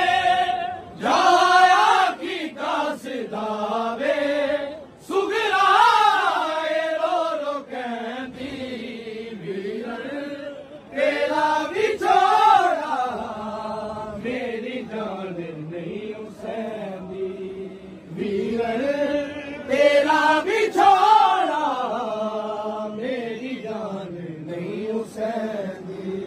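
Men's voices chanting a Punjabi noha, a Shia mourning lament. The melody rises and falls, with short breaks between the lines.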